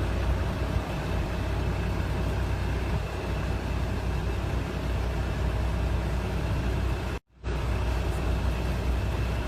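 Truck engine running steadily with a low rumble. The sound drops out completely for a moment about seven seconds in.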